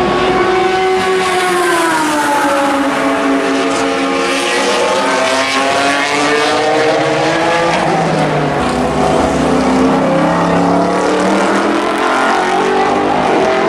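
Le Mans prototype race car engines at racing speed, the engine note falling and rising several times as the cars brake, shift gears and accelerate on the circuit.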